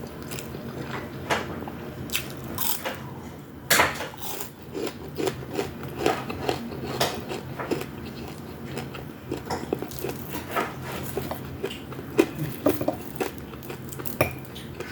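Close-miked eating sounds: a person biting and chewing food, with irregular wet clicks and smacks of the mouth, over a faint steady low hum.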